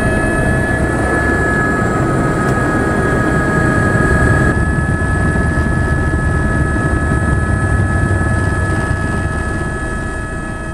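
Helicopter turbine engine running, with a steady high whine over a heavy rumble of rotor and wind noise. It fades away near the end.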